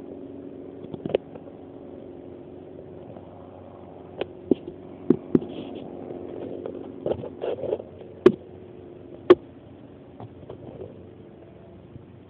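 A steady low hum with irregular sharp clicks and taps, the kind of handling noise a handheld camera makes as it is moved about; two louder knocks come a little past the middle.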